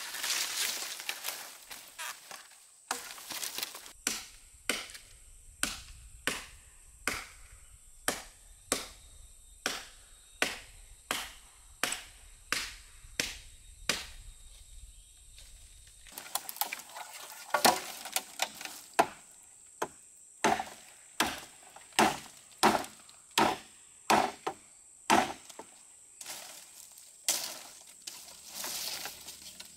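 Machete chopping wooden branches: a long run of sharp, even strokes, about three every two seconds, that turns less regular about halfway through.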